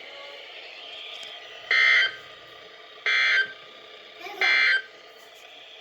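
Emergency Alert System end-of-message data bursts on a NOAA Weather Radio broadcast: three short buzzy digital bursts a little over a second apart, marking the end of the severe thunderstorm warning, over a faint steady hiss.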